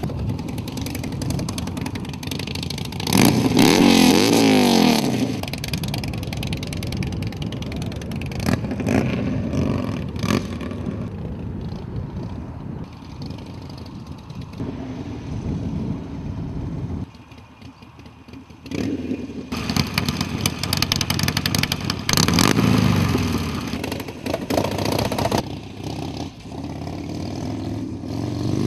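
Motorcycle engine revving and running, its pitch rising and falling through the gears. The engine is loudest in rev-ups about three seconds in and again past twenty seconds, and it drops away briefly a little past the middle.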